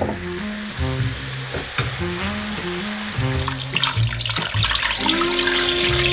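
Water poured from a glass jug into a pot already part full, a steady splashing rush that starts about halfway through, over background music with a melody.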